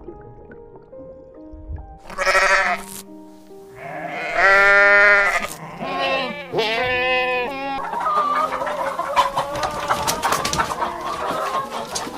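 Soft background music, then three loud pitched farm-animal calls a couple of seconds apart, followed from about eight seconds in by a busy stretch of overlapping calls and short clicks.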